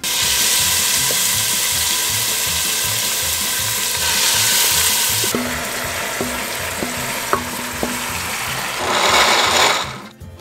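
Meat frying and sizzling in a stainless-steel pot while it is stirred with a wooden spoon. The hiss eases a little about five seconds in as a wet green herb mixture is poured in, and the spoon knocks against the pot several times after that. A louder burst of hiss comes near the end.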